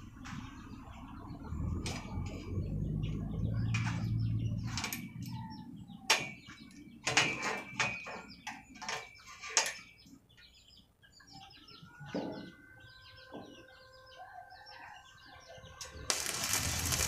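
Sharp metallic clicks and knocks as locking pliers are set on a steel bar and channel, over birds chirping and a low hum that fades about five seconds in. About a second before the end, an arc welder strikes and starts a loud, steady crackling hiss.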